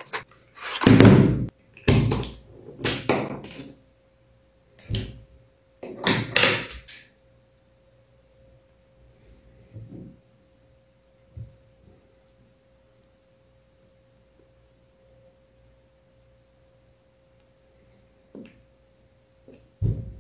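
Handling noises from a toothpaste carton and tube: several short, sharp rustles and knocks in the first seven seconds. Then it goes mostly quiet, with a few soft taps, a faint steady hum and a thin high whine.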